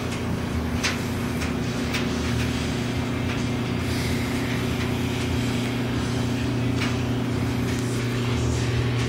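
A steady low hum, with a few short faint clicks over it.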